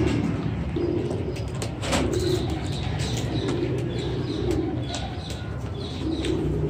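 Teddy pigeons cooing, a string of low coos every second or so, with a few light clicks and scratches.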